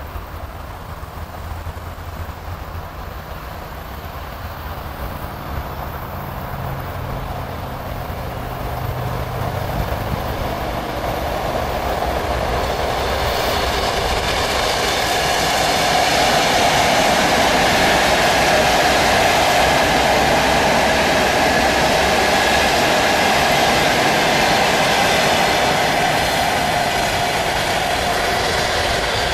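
ET2 DC electric multiple unit approaching and passing: the rumble of the train on the rails grows louder over the first fifteen seconds or so, then holds as a steady din with a hum while the cars go by, easing slightly near the end.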